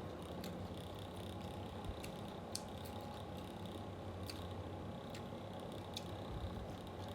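Soft eating sounds, chewing with a few sharp clicks, over the steady hum of an electric fan.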